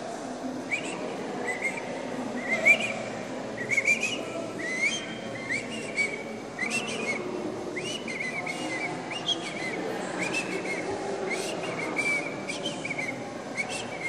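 Whistling: a long run of short chirping notes at about the same high pitch, one every half second or so, over a low steady background murmur.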